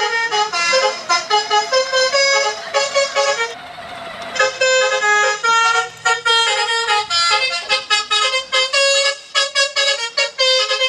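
Telolet multi-tone truck horn playing a rapid tune of short, stepping notes, with a brief pause about three and a half seconds in.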